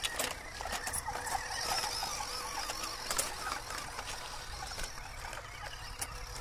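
Electric motor and gearbox of an MN82 Pro 1/12-scale RC Land Cruiser whining as it crawls over dirt and broken brick, the pitch wavering with the throttle, with a few sharp clicks.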